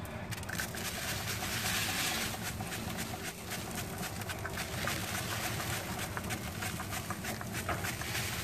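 Wood fire crackling in an open grill under a rotisserie turkey, with hissing as butter is spritzed from a spray bottle onto the turning bird; many small snaps over a steady hiss.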